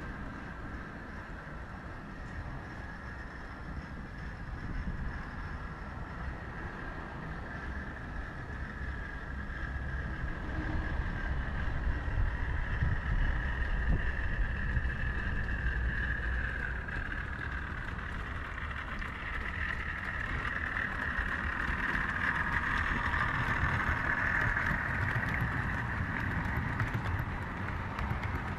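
00 gauge model train running on its track: a steady motor whine over a low rumble of wheels, swelling louder in the middle and again later as it passes.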